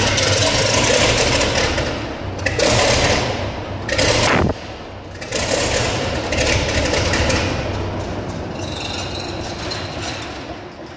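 Gardner 8L3B straight-eight marine diesel just started and running loud and rough, its speed held by hand at the injection pump rack because the governor's trigger box is missing. The sound dips briefly about four and a half seconds in, picks up again, then gradually quietens toward the end.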